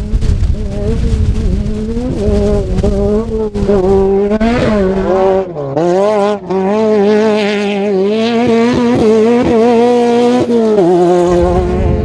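Class 10 off-road race car engine running hard at high revs, its pitch rising and falling with the throttle. The revs dip briefly about halfway through, then climb and hold high, with a low rumble from the ground underneath in the first half and again near the end.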